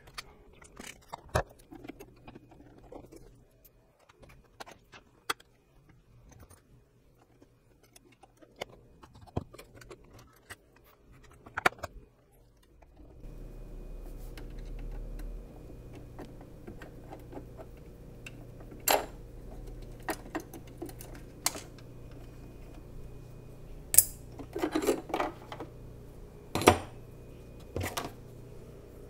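Small metal parts and tools clicking and clinking as a Singer Simple sewing machine is taken apart by hand around its needle plate. The clicks come irregularly, and the sharpest fall near the end. About halfway in, a steady low hum sets in underneath.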